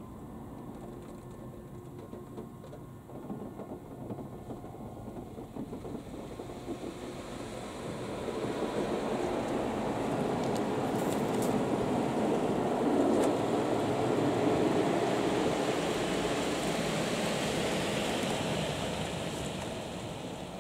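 Steady rushing of a touchless car wash gantry's jets against the car body, heard from inside the cabin. It swells from about eight seconds in as the gantry comes near, stays loud, and eases off near the end.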